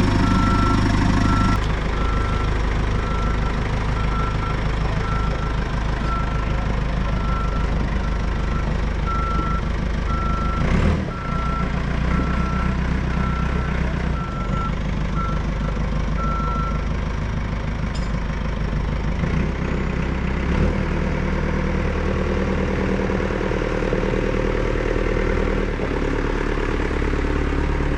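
Caterpillar 420 IT backhoe's diesel engine running while the machine moves, with its reverse alarm beeping steadily, just under once a second, until it stops a little past halfway as the backhoe comes out of reverse. A single clunk sounds about eleven seconds in.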